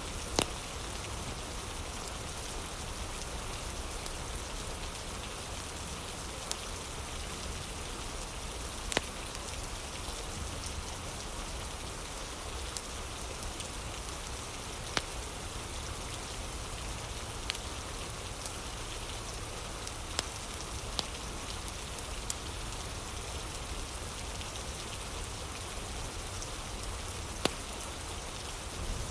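Steady rain falling, with an occasional sharp crackle from a wood fire every few seconds and a low rumble underneath.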